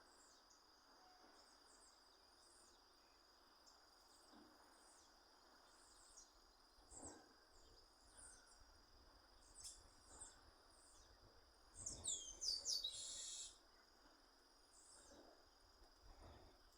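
Chestnut-capped blackbird (garibaldi) singing: about twelve seconds in, a loud phrase of quick falling notes runs into a buzzy trill lasting about a second and a half. Under it, an insect drones on one steady high note, and short faint chirps come and go.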